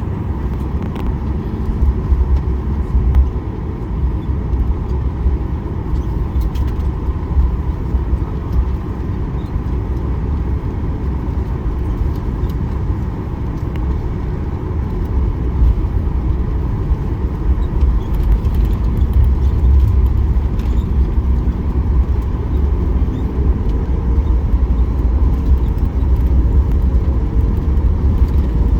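Airliner running with a steady low rumble and faint steady whining tones, growing slightly louder toward the end.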